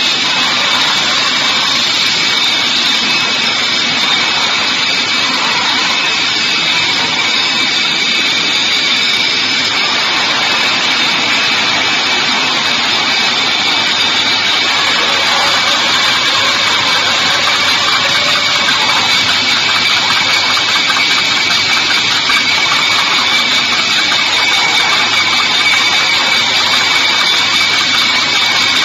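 Bottling-line machinery running: bottle conveyors and an automatic sleeve labeling machine making a steady, loud mechanical noise with a high whine.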